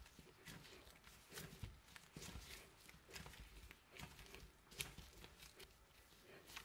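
Stiff noodle dough being kneaded by gloved hands on a marble countertop: faint, irregular soft presses and squishes, one or two a second.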